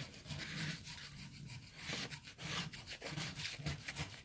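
A coin scraping the coating off a paper scratch-off lottery ticket in quick repeated strokes.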